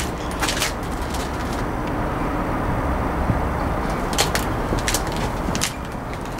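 Detroit Diesel 40 Series diesel engine of a Kohler 125 kW generator set running steadily at its governed 1800 rpm, with scattered short crackles over the steady engine sound.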